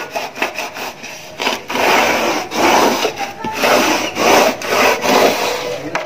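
A vacuum cleaner attachment scraping in repeated back-and-forth strokes along a sliding-window track, working loose dust stuck in the track.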